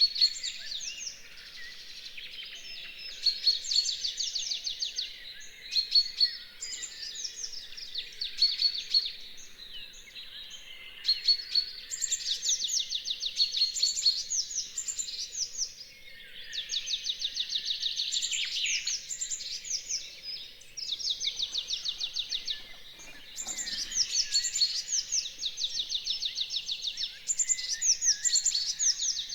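Dawn chorus: many songbirds singing at once, overlapping phrases of rapid repeated chirps and trills that follow one another every few seconds without a break.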